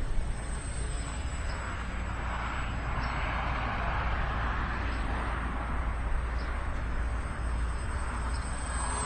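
Small electric RC biplane's motor and propeller buzzing in flight, swelling and fading as the plane passes nearer and farther, with wind rumbling low on the microphone.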